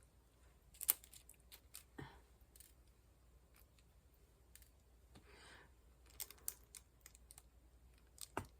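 Faint, irregular clicks and taps of a diamond-painting pen setting square drills onto the canvas, a few a second.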